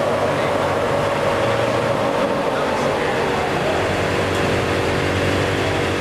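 Ford Super Duty pickup's Power Stroke diesel engine running steadily on a chassis dyno, with voices in the background.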